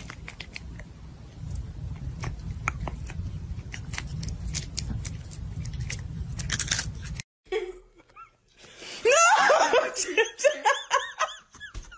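A cat biting and chewing at a small object held in a person's fingers: rapid crunching clicks over a low rumble. About seven seconds in it cuts off suddenly, and then a person laughs.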